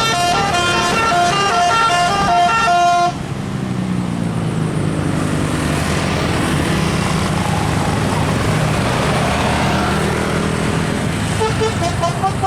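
Musical "telolet" air horn playing a quick stepped tune of short notes. It cuts off abruptly about three seconds in, leaving vehicle engine and road noise. The horn tune starts again near the end.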